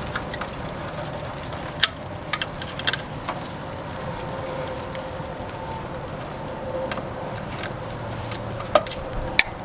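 Screwdriver working at the sheet-metal screws of an RV furnace's combustion-wheel cover: scattered sharp metal clicks and taps over a steady background hum.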